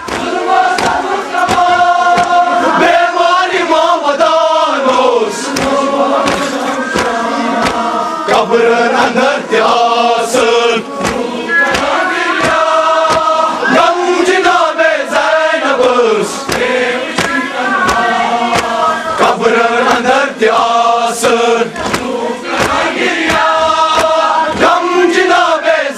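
A crowd of men chanting a Muharram noha together, punctuated by frequent sharp slaps of hands beating chests (matam).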